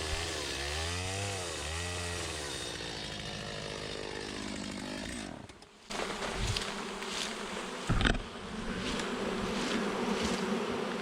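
Honeybees buzzing close by, a steady hum. For the first few seconds a small engine runs alongside, its pitch rising and falling in repeated waves. Just before the middle the sound dips briefly, and two knocks follow.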